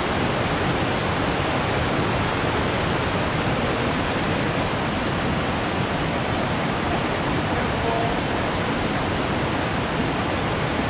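Mountain creek rushing steadily, a loud, even wash of water noise.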